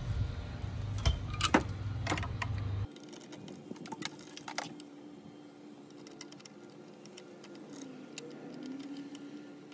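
Light clicks and taps of a car horn and its small mounting screws being handled and fitted to a metal bracket, over a low hum. The hum stops abruptly about three seconds in, leaving fainter scattered clicking.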